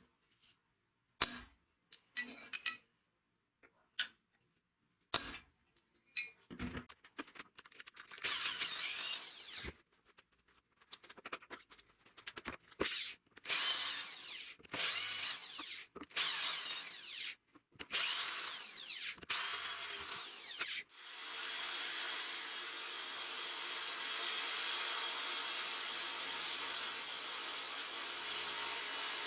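A few sharp knocks and clicks of handling, then a handheld power tool run in repeated bursts of a second or two. About two-thirds of the way in it settles into a steady run.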